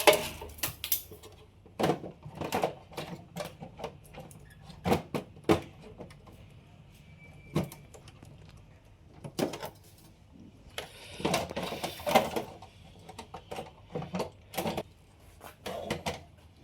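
Clicks, knocks and clatter of a Dell PowerEdge R730 system board being unlatched, slid forward and lifted out of the server's metal chassis, with a longer scraping rub about eleven seconds in.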